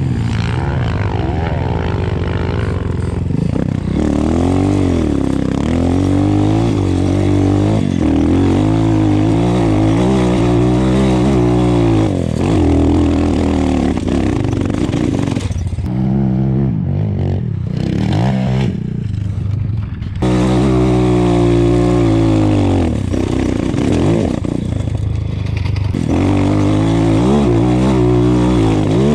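RXF 150 pit bike's engine ridden hard, the revs rising and falling with throttle and gear changes. The revs drop in two short lulls a little past the middle.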